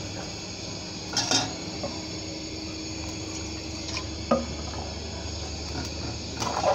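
A metal spatula stirs a watery chicken curry in an aluminium pot, sloshing the broth and clinking against the pot three times over a steady low hum.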